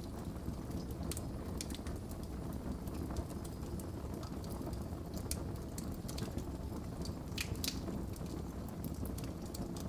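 Wood fire burning in a fireplace: a steady low rumble with scattered sharp pops and crackles, a cluster of them about seven and a half seconds in.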